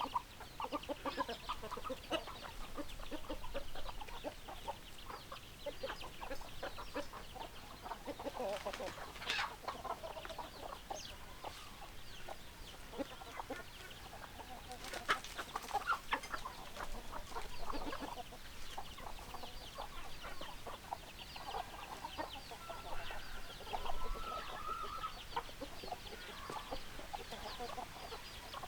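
A flock of hens clucking, many short overlapping calls without a break. About three quarters of the way through, one longer drawn-out call rises above the clucking.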